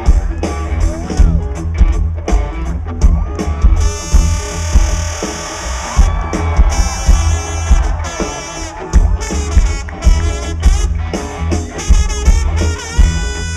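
Loud live rock band playing, with drum kit, electric guitars and heavy bass, and a trombone playing melody lines over them.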